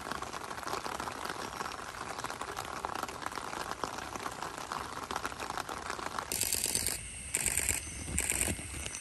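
A steady watery rushing noise. About six seconds in it gives way to three loud, high-pitched insect buzzes, each about half a second long.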